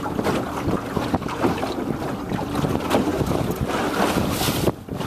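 Wind buffeting the microphone over choppy sea water, with a brief lull near the end.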